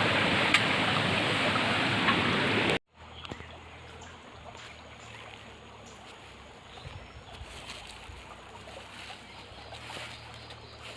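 Steady rush of stream water close to the microphone, cut off abruptly about three seconds in. After that, only a faint trickle with a low hum.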